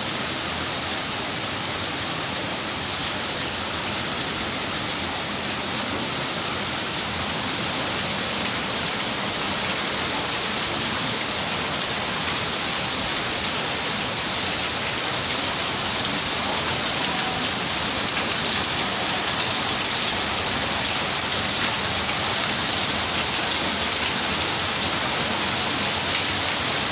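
Tropical rain falling steadily, a dense even hiss that grows a little louder as it goes on.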